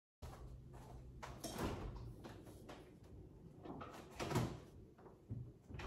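A few soft knocks and clicks of things being handled, like a drawer or cupboard, over faint room tone; the loudest knock comes about four seconds in.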